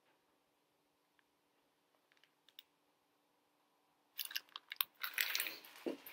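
Mostly quiet with a few faint clicks, then about four seconds in a sudden burst of crinkling and rustling plastic packaging from a packaged wrap poultice being handled and set down.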